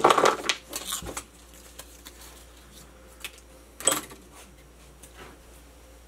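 Small metal parts and an Allen key clinking and clattering as they are handled and set down on a workbench: a cluster of clicks at the start, one sharper knock about four seconds in, and a few faint ticks in between.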